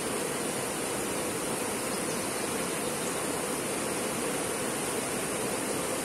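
Shallow rocky river flowing: a steady rush of water running over stones.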